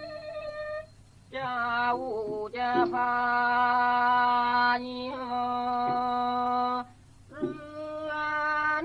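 A male singer in Thai classical style holding long, drawn-out sung notes that bend between pitches. There are two short breaks for breath, about one second in and near seven seconds.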